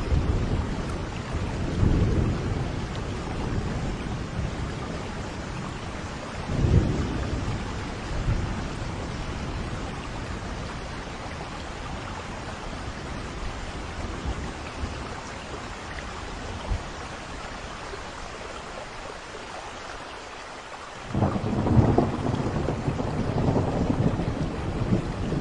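Steady rain falling during a thunderstorm, with low rolls of thunder; a loud thunderclap breaks in suddenly near the end and rumbles on.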